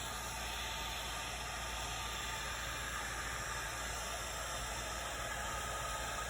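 Heat gun blowing steadily over freshly poured epoxy to draw out the air bubbles: an even, unchanging hiss.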